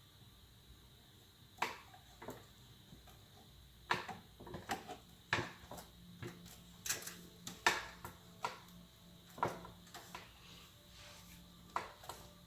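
Irregular light clicks and knocks of a PC power supply's cables and 24-pin ATX connector being handled and pushed into place on a motherboard inside the case. A faint low hum sets in about halfway through.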